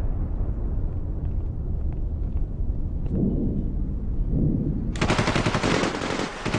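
A low rumble, then about five seconds in a sudden burst of rapid automatic gunfire that keeps going.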